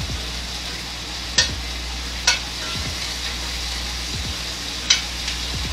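Steak sizzling steadily as it fries in a pan with butter and oil, with three sharp clicks, about a second and a half, two and a half and five seconds in.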